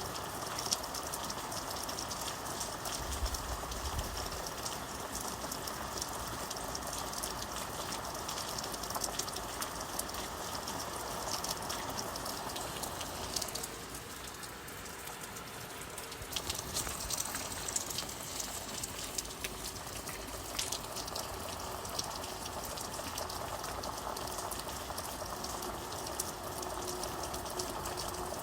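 Steady rain falling, with a dense patter of individual drops over an even hiss of water. It thins briefly about halfway through, then returns.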